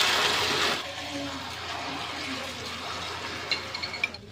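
Beaten egg and sardine omelette mixture sizzling as it is poured into hot oil in a frying pan: loudest in the first second, then a steady hiss. A few light clicks near the end.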